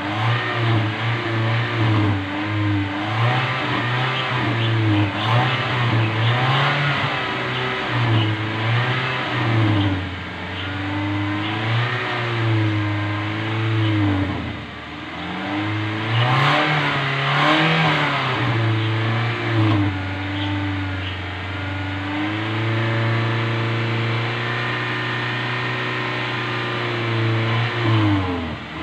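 Toyota Innova's engine being revved up and down repeatedly while its exhaust blows out smoke during a carbon-cleaning (decarbonising) treatment. Near the end it is held at a steady raised speed for several seconds, then drops back.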